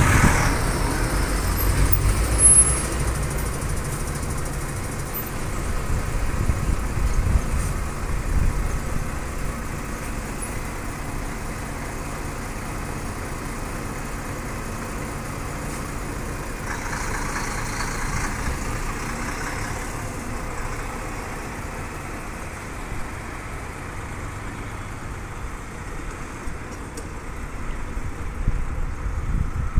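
Diesel coach bus moving off at close range, its engine rumble loudest in the first few seconds and then easing to a steady traffic rumble as it drives away. A hiss lasting a few seconds comes midway.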